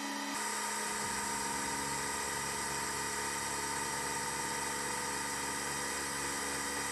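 Spindle of a converted CNC milling machine running steadily while a small end mill cuts tantalum sheet under coolant, the cutter working hard at low speed and shallow depth. A steady whine of several pitches, with a low rumble joining just after the start.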